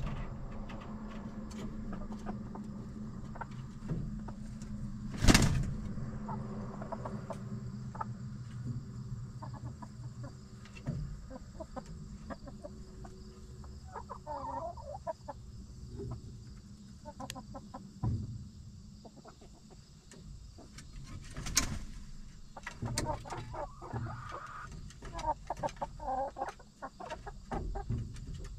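Backyard hens clucking softly now and then, with bunches of clucks in the second half. There are two sharp knocks, one about five seconds in and one past the middle.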